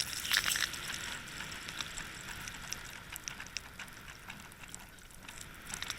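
Steady hiss of seawater rushing along a moving boat, with scattered light clicks and ticks.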